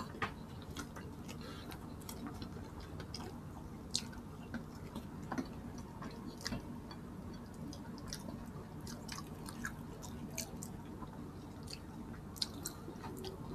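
Close-miked chewing and eating sounds: two people eating boiled pork and rice by hand, with scattered small wet smacks and clicks over a faint steady low hum.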